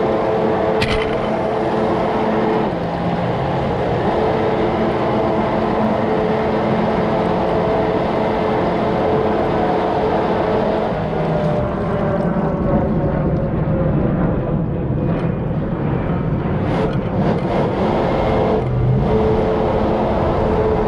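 Jet kayak's motor running under way, a steady hum whose pitch shifts and drops away a few times: the motor keeps cutting out.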